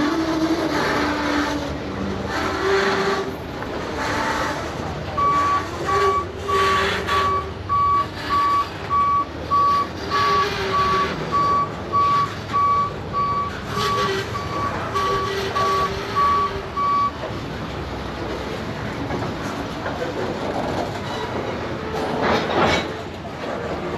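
A vehicle's backup alarm gives a steady run of about twenty single-pitch beeps, just under two a second, then stops about two-thirds of the way through. A vehicle engine runs underneath throughout.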